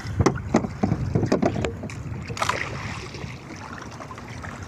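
Water slapping and knocking against the hull of a small outrigger fishing boat. A cluster of irregular knocks comes in the first second and a half, then a steady wash of water and wind.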